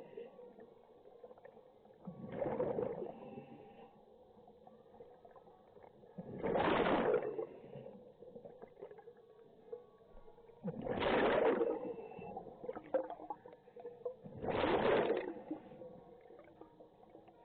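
Scuba diver breathing through a regulator underwater: four bursts of exhaled bubbles, each about a second long, roughly four seconds apart.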